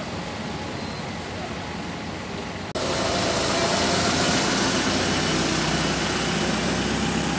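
Double-decker bus engines idling, with a steady hum of traffic. The sound jumps abruptly louder nearly three seconds in, then holds steady.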